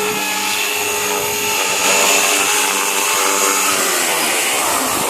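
JR Forza 450 electric RC helicopter hovering low with a steady whine from its motor and rotors as it comes in to land at the end of a three-minute flight.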